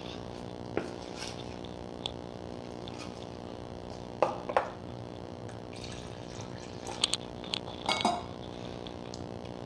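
A metal spoon stirring maida flour and water batter in a metal bowl. It clinks and scrapes against the bowl's side a few times, in pairs about halfway through and near the end.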